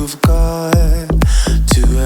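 Background pop music with a steady beat and a deep kick drum.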